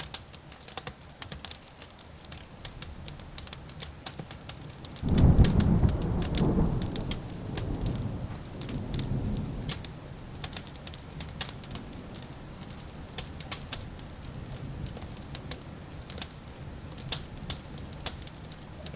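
Wood fire crackling and popping steadily, with a clap of thunder that breaks suddenly about five seconds in and rolls on in a few waves for about five seconds before fading.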